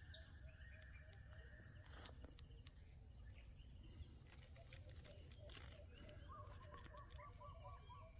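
Steady high-pitched insect chorus, like crickets, running throughout. Faint repeated chirps sound beneath it, and near the end a quick series of about seven short bird-like notes.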